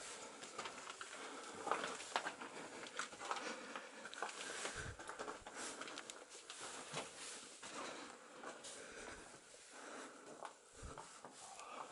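Footsteps crunching on loose rock and gravel in an enclosed mine tunnel: an irregular run of small scuffs and crunches, with a couple of heavier low steps.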